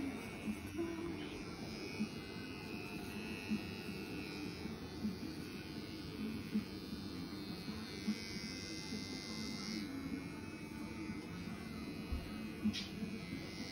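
Electric hair clippers with a guard buzzing steadily as they are run over a close-cropped head and the back of the neck, cutting hair. There is one short click near the end.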